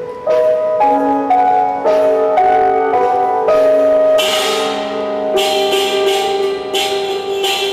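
Grand piano played live: a series of mid-register notes and chords, a new one about every half second, each ringing on. From about four seconds in, a bright, noisy shimmer sits over the notes.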